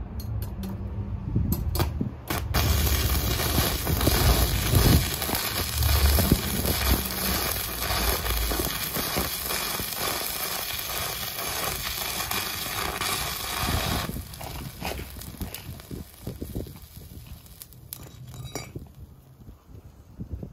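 Stick-welding arc from a homemade welding inverter: a few sharp crackles as the electrode is struck in the first two seconds, then a steady loud crackling sizzle of the running arc that breaks off about fourteen seconds in, followed by scattered crackles.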